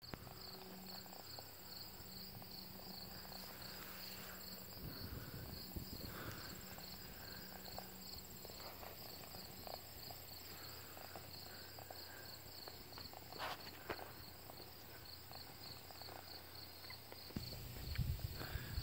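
Faint, steady insect chirping, a high-pitched pulse repeating several times a second, with soft rustling and handling noise that grows louder near the end.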